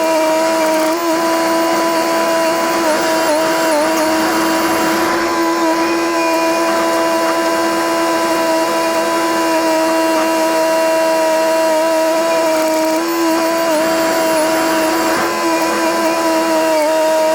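Komatsu DP21 rubber-tracked bulldozer working at steady throttle, its running machinery giving a loud, steady high whine that sags slightly in pitch a couple of times under load.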